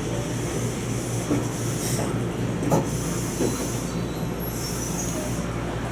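Former Seibu New Red Arrow electric train, now the Toyama Chiho Railway 20020 series, running along the line, heard from on board. A steady running noise carries a few sharp clicks and spells of high-pitched wheel squeal.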